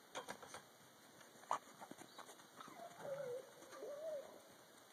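A dog whining: a drawn-out, wavering cry in two stretches past the middle. Before it come a few short, sharp clicks, the loudest about a second and a half in.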